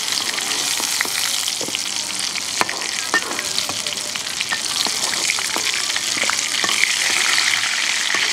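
Pointed gourd pieces sizzling steadily in hot oil in an iron karahi. A steel spatula scrapes and clicks against the pan now and then as fried pieces are lifted out.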